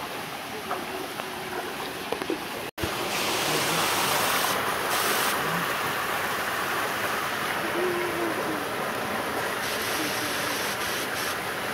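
Shallow stream water running, a steady rushing hiss that jumps louder after a cut about three seconds in, with a few faint voices.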